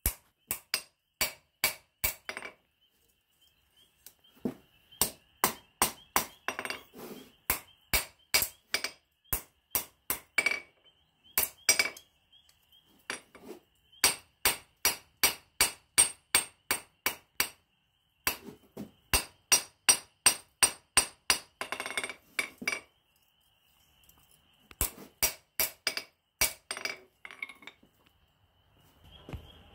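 Peddinghaus 1 kg engineer's hammer striking hot flat steel bar on an anvil during forging. The blows come as sharp ringing strikes in quick runs of about three a second, with short pauses between runs.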